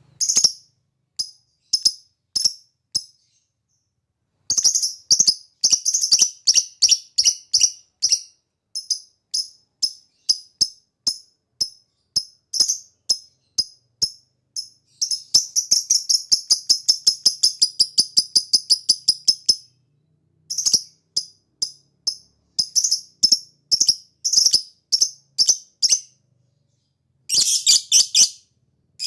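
Lovebird singing in the Indonesian 'ngetik ngekek' style: runs of short, sharp, high chirps repeated in quick series with brief pauses. About halfway through they run together into a long unbroken chatter lasting some four seconds.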